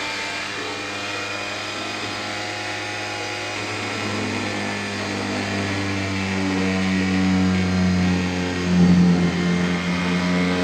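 Pigeon G561 corded oscillating multi-tool running at its top setting of 20,000 oscillations per minute with a cutting blade fitted: a steady, even buzz. From about four seconds in it grows louder and changes tone, loudest around nine seconds, as the blade cuts into the work.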